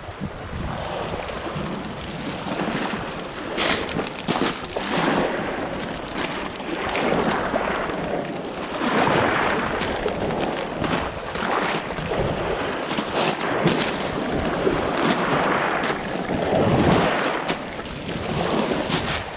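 Rushing wind-and-water noise that swells and falls every few seconds, with scattered sharp clicks.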